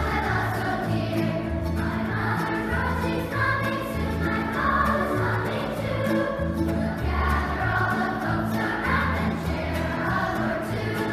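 A large children's choir singing with an acoustic bluegrass band: guitars, banjo and upright bass, the bass plucking low notes on a steady beat under the voices.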